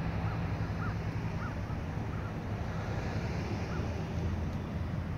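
Steady low rumble of road traffic with wind buffeting the microphone. A few short high calls come about every half second in the first second and a half, and once more near the middle.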